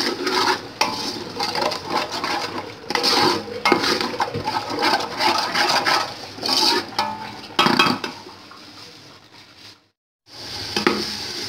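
Wooden spoon stirring and scraping yogurt and fried onions around a metal pot, over hot oil sizzling. The spoon makes repeated strokes against the pot, and the sound cuts out for a moment near the end.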